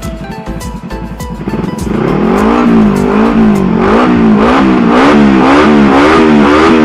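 Small engine of an off-road reverse trike being revved up and down about twice a second, after a short stretch where only background music is heard.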